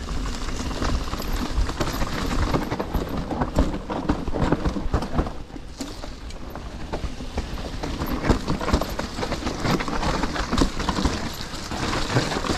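Trek Slash mountain bike descending a rough trail: tyres knocking over rocks and roots while the chain and frame rattle in irregular clicks and clatters.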